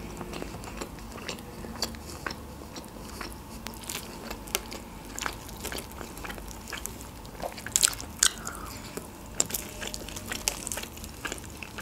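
Close-miked chewing, then crisp crackles and clicks as a charred, crispy-skinned rotisserie chicken is torn apart by hand. The loudest cluster of crackles comes about eight seconds in.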